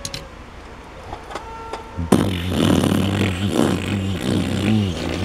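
A man imitating a sputtering car engine with his mouth, a rough, wavering, revving drone that starts suddenly about two seconds in and lasts a few seconds: the toy car is playing at having engine problems. Before it, only a few light clicks of a die-cast toy car on the wooden track.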